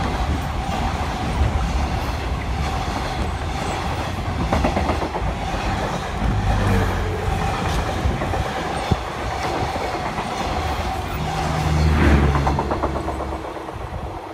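Container freight train's wagons rolling past close by, wheels clattering rhythmically over rail joints in a steady rumble. The noise eases off near the end as the last wagons pass.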